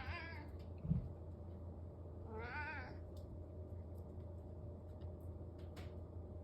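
Domestic cat meowing for its breakfast. There are two meows, one right at the start and a longer, wavering one about two and a half seconds in, with a short low thump about a second in and a steady low hum underneath.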